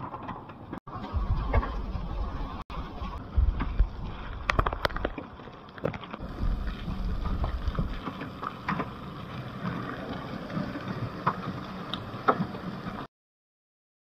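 Heavy rain pouring onto a flooded road: a steady hiss made up of many small drop splashes, with low rumbles that come and go. It cuts off abruptly near the end.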